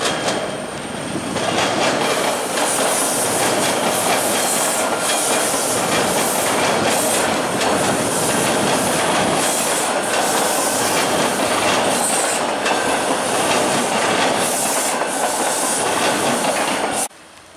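TTC T-1 subway train rolling over crossover switches and rail joints: a steady rumble with rapid clattering clicks from the wheels and patches of high squeal. It cuts off suddenly near the end.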